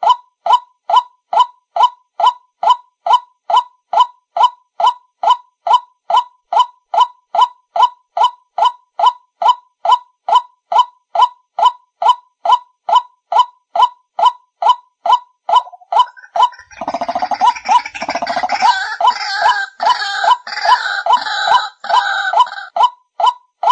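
White-breasted waterhen (kareo padi) calls played as a bird lure through a small speaker: short, regularly repeated call notes at about three a second. From about 16 to 23 seconds a denser, harsher burst of overlapping calling joins in over the steady notes.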